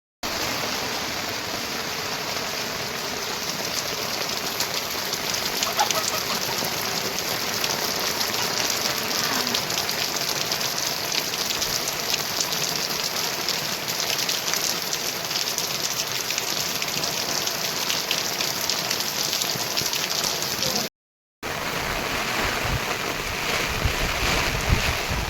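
Heavy rain falling steadily, a dense patter of drops on surfaces, broken once by a half-second gap of silence about four-fifths of the way through.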